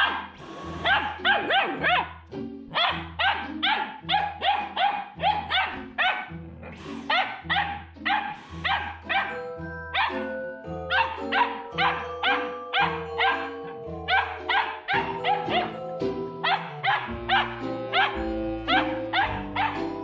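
Samoyed puppy barking at a stick vacuum cleaner in quick runs of short, high barks, several a second with brief pauses between runs. Background music plays underneath with a steady bass.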